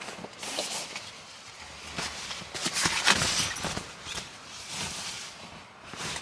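Irregular crunching and rustling, loudest about three seconds in.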